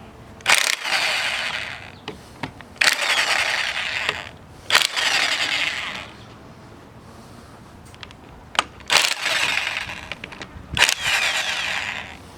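Impact wrench run in four short bursts of about a second and a half each, each starting with a sharp click, while the power steering pump is being taken apart.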